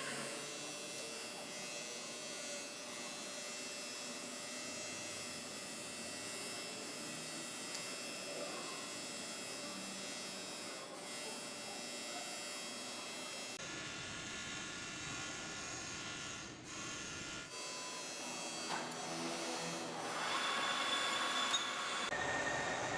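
Electric workshop machinery humming steadily, with the tone changing abruptly a few times.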